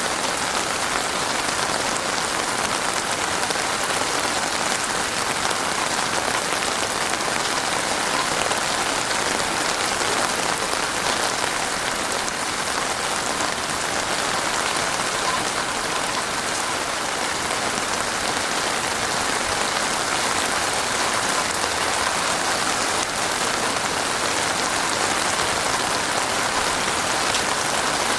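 Heavy rain falling steadily, a dense, even hiss of countless drops on a surface.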